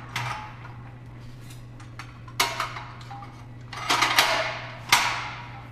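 Metal parts of a manual motorcycle tire changer clanking and knocking as its clamps are handled and set: several sharp metallic knocks with a ringing tail, the loudest around four and five seconds in. A steady low hum runs underneath.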